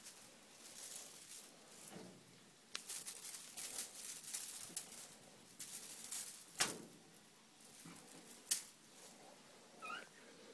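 A kitten scuffling and scrambling on a tiled floor and being handled: scattered soft scrapes and rustles, with a few sharp clicks. A short, faint kitten mew comes near the end.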